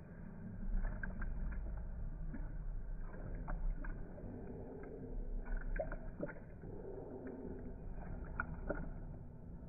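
French bulldog lapping water from a stainless steel bowl, slowed down: deep, drawn-out sloshing and splashing with scattered irregular clicks.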